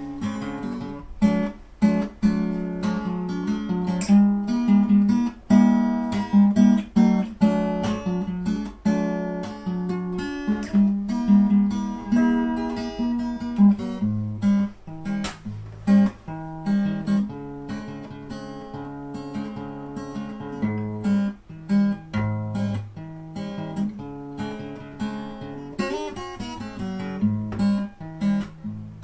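Background acoustic guitar music, a steady flow of plucked and strummed notes.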